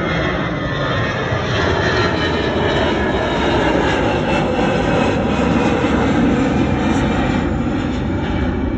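Airbus A320 airliner's jet engines at climb thrust just after takeoff, a loud, steady jet noise as the plane passes overhead.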